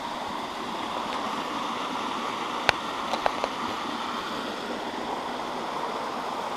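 Steady rush of a mountain creek running over rock cascades. A few short sharp taps sound just past the middle, one louder and then three quicker and softer.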